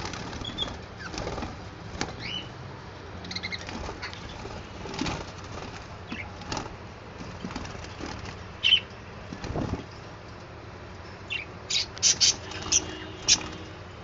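Budgerigars calling in short chirps, with scattered rustles and knocks. Near the end comes a quick run of five or six sharp, loud chirps.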